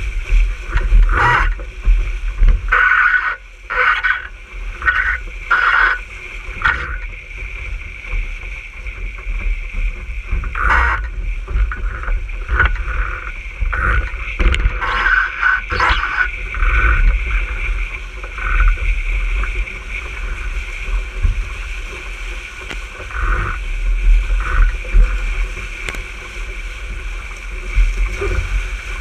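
RS 600 dinghy planing fast: water rushes past the hull with a steady low wind rumble on the camera microphone, and irregular splashes of spray slap against the bow, most often in the first half.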